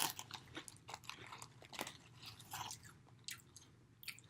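A person chewing Doritos tortilla chips: faint, irregular crunches, a few each second.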